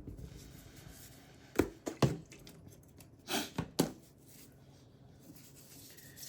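A few sharp clicks and taps of small objects being handled on a work surface, four in all, spread over about two seconds, against a faint hiss.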